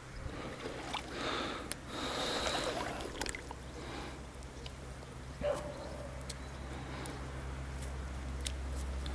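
Shallow water sloshing and splashing around a rubber boot wading in weedy, duckweed-covered water, busiest in the first few seconds. A short sharp knock comes about five and a half seconds in, over a steady low hum.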